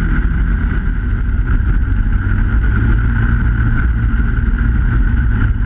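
Snowmobile running along a groomed trail at steady speed: a constant high whine over a low rumble, with wind on the microphone.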